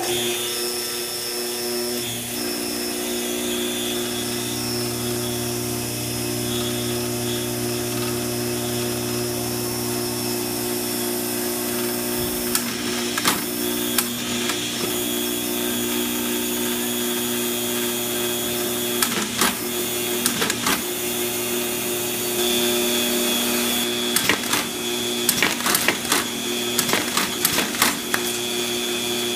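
Astro envelope feeder's vacuum pump switching on and running with a steady hum and whine. Scattered clicks and rattles come in, crowding together near the end as envelopes are fed through the machine.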